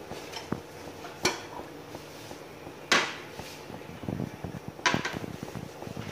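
Stainless-steel plate resting as a lid on a pot of boiling potatoes, clinking against the pot's rim: three sharp metallic clinks a second and a half to two seconds apart, with lighter rattling near the end.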